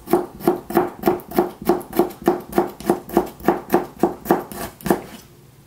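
Kitchen knife chopping pickles on a cutting board in quick, even strokes, about four a second, stopping about five seconds in.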